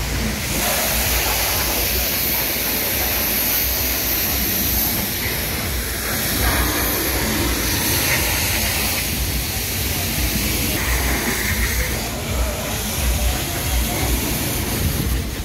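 Wash mitt rubbing over a foam-covered car body, over a loud steady hiss with a low rumble underneath from the car-wash bay.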